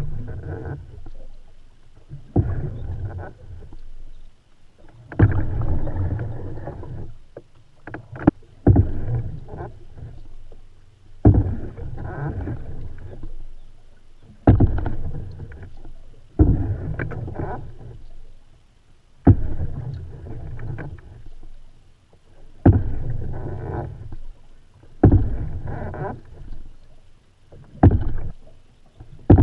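Canoe paddle strokes in lake water, about every two and a half to three seconds. Each stroke starts with a sharp splash and trails off in a swirl of water lasting about a second.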